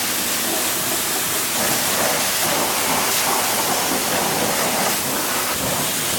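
Pressure-washer water jet spraying steadily onto a tire and wheel, a continuous hiss of water.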